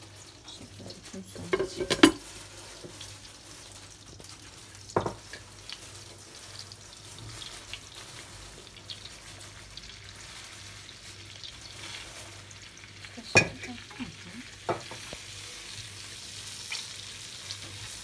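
Cornmeal sizzling as it is toasted in melted butter in a pan, stirred with a wooden spoon: the first roasting stage of kuymak. A few sharp knocks stand out, the loudest about two seconds in and again about thirteen seconds in.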